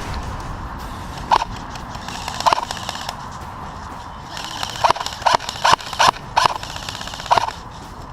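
Airsoft rifle fired in single shots, each a short sharp pop: two spaced shots, then a quick string of five about half a second apart, and one more near the end.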